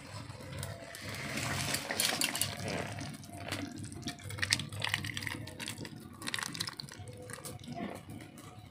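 Thick fish-and-potato curry being poured from a wide metal pan into a steel bowl: a wet, slopping pour with scattered clinks and scrapes of metal on metal.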